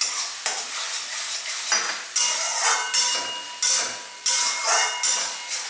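A metal spoon stirring and scraping a masala of onion, tomato and spices frying in a metal pan, in a series of sharp strokes about once a second, each with a hiss of sizzling as the splash of water just added cooks off, and a faint ring from the pan.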